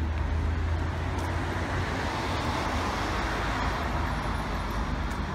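Road traffic going by: a car passes on the street, its noise swelling in the middle and fading, over a steady low engine rumble.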